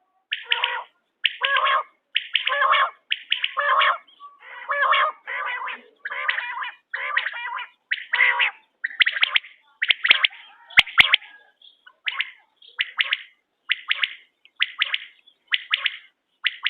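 Quail calling over and over, about one call a second. The calls are longer and fuller in the first half, then turn shorter and higher-pitched. Two sharp clicks come a little after the middle.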